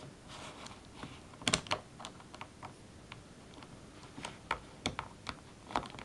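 Irregular plastic clicks of a 4x4x4 Rubik's cube as its layers are turned by hand: a quick cluster about one and a half seconds in, then scattered single clicks in the second half.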